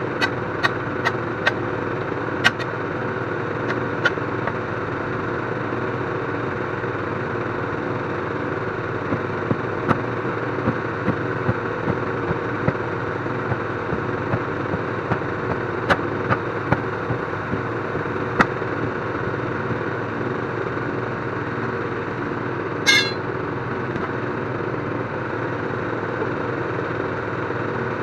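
An engine idling steadily, with sharp knocks scattered over it, several in the first few seconds and more around the middle, and one short higher-pitched burst near the end.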